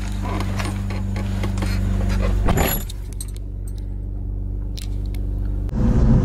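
BMW M54B30 inline-six idling steadily, under clicks and rattles of handling inside the car and a door shutting about two and a half seconds in. Near the end the engine takes load and its note rises slowly as the car pulls away.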